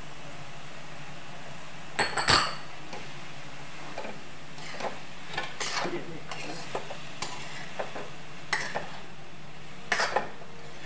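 A metal spoon stirring and scraping vegetables in a metal kadhai, with one loud metallic clank about two seconds in and scattered clinks and scrapes of the spoon against the pan after it, over a steady low hum.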